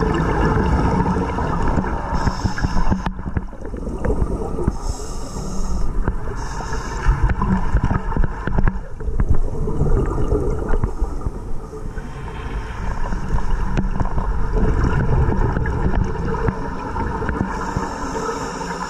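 Underwater sound of scuba diving heard through a camera housing: regulator breathing, with a hiss on each inhale that comes and goes several times, and the low rumble of exhaled bubbles and water moving past the housing.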